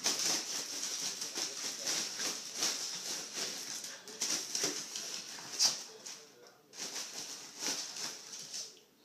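Inflated plastic shopping bag crinkling and rustling as a dog noses, bites and shoves it around, with a short lull about six seconds in before the crinkling starts again.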